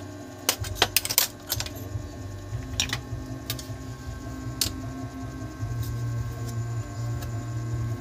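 Sharp clicks and light clatter of a car stereo's sheet-metal casing being handled and its top cover prised up, a quick run of clicks about half a second in and a few single clicks later, over a steady low hum.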